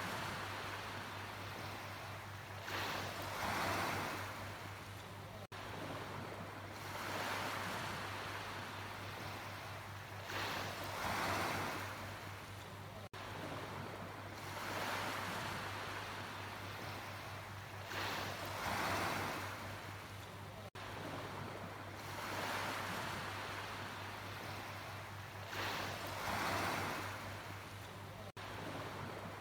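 Sea waves washing in and breaking, each surge building and fading in a regular cycle about every seven to eight seconds. A steady low hum runs underneath.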